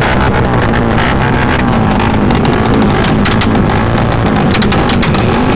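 Motorcycle engine revving hard through a loud exhaust, its pitch rising and falling, with sharp cracks scattered through it and music underneath.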